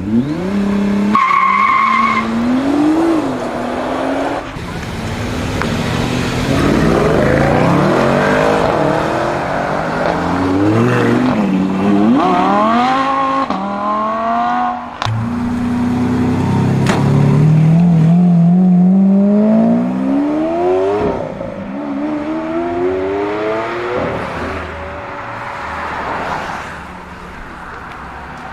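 High-performance car engines revving and accelerating hard, the engine pitch climbing, dropping at each gear change and climbing again, several times over. A short steady tone sounds about a second in.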